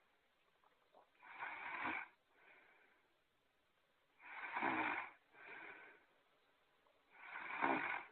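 Snoring sound effect: three loud snores about three seconds apart, each followed by a softer breath out.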